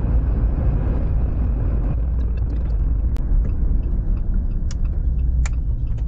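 Steady low road and engine rumble inside the cab of a Jeep pulling a small travel trailer at road speed, with a few short clicks in the second half.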